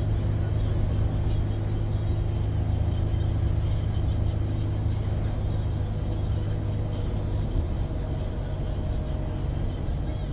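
Scania V8 diesel truck engine running steadily under way, a deep steady drone that drops slightly in pitch about two-thirds of the way through.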